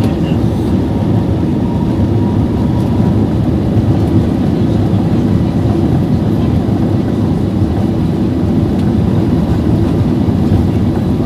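Steady low roar inside a jet airliner's cabin during takeoff, from the engines and rushing air.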